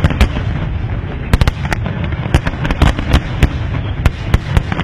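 Aerial fireworks display: a dozen or so shell bursts, sharp bangs at irregular intervals, over a continuous rumble from the many shells and ground effects firing at once.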